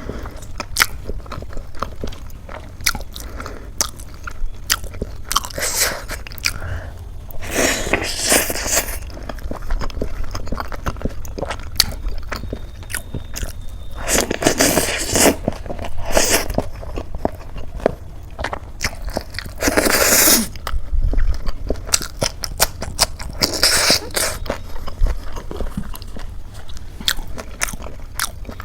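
Close-miked eating of crisp khasta samosa: steady wet chewing clicks, broken every few seconds by louder crunching bites.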